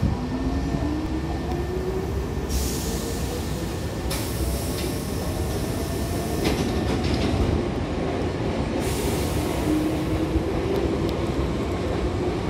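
Hankyu commuter train's pneumatic sliding doors closing, with several bursts of air hiss, over a steady low train rumble and an electric motor whine that rises slowly in pitch through the first half.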